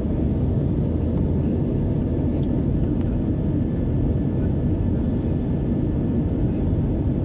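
Steady cabin drone of an Airbus airliner in flight: jet engine and airflow noise heard from inside the cabin as an even low rumble.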